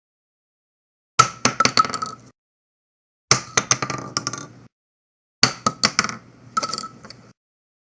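Spent gun shell casings dropped and bouncing on a hard surface, three times over, each drop a quick run of clinking bounces with a ringing tone that dies away.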